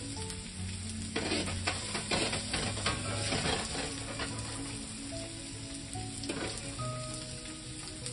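Julienned carrots, bell pepper, onion and ginger sizzling in hot oil in a stainless pan while being stirred, with irregular scrapes and clicks of the utensil against the pan.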